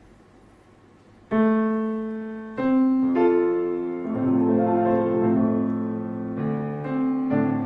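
Background piano music: after a second or so of faint hiss, slow sustained notes and chords come in one after another.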